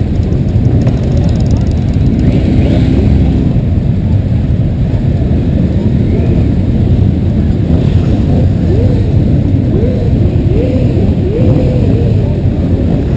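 Motorcycle engines running under a loud, dense rumble, with a run of quick rises in engine pitch, about one a second, in the second half as engines rev.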